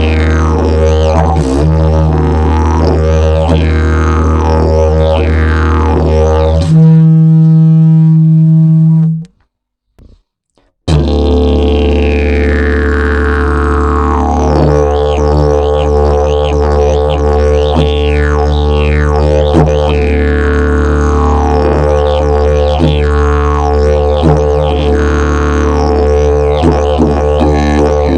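Fiberglass and prickly pear fiber double-slide didgeridoo playing a steady low drone, its overtones sweeping up and down. About seven seconds in it jumps to a louder, higher held note, then stops for a second or two and the drone starts again with the same sweeping overtones.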